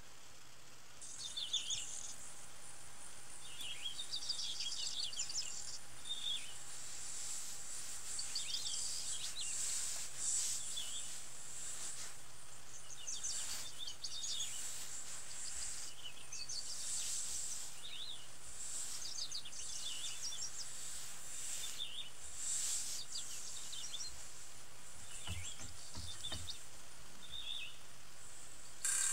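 Night-time nature ambience: a steady high hiss of insects with clusters of short, high chirps recurring every second or two.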